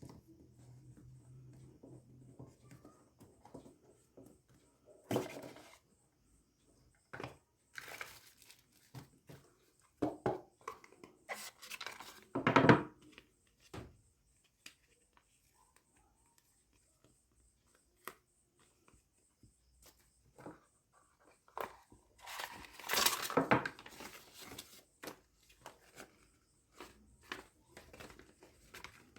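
Unboxing handling noises: packaging rustling, crinkling and tearing in irregular bursts, with scattered clicks and knocks. The loudest bursts come about midway and again about two-thirds of the way through.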